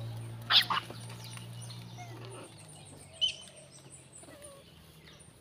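Long-tailed macaques giving two sharp squeals in quick succession about half a second in, then a shorter high squeak a little after three seconds. A steady low hum runs underneath and stops about halfway through.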